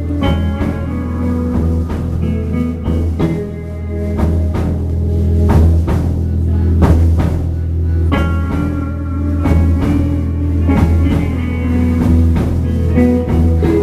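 Rock band playing live: electric guitars over bass and a drum kit, an instrumental passage with no singing.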